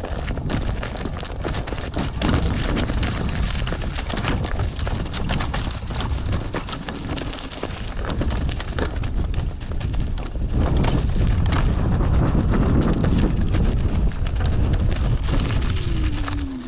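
Wind buffeting the microphone on a downhill trail ride, with knocks and rattles throughout, louder from about ten seconds in, and a short falling squeal near the end.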